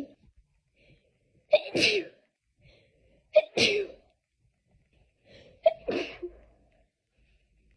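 A person in a sneezing fit, sneezing three times in a row about two seconds apart. Each sneeze opens with a sharp catch and runs into a longer, falling "choo", and a short breath is drawn in before each one.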